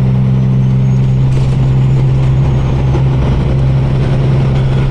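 Semi-truck diesel engine running steadily, heard from inside the cab as a loud, even low drone with road noise over it.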